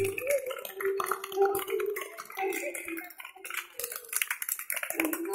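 Children's voices singing with short held notes, over many small clicks and taps.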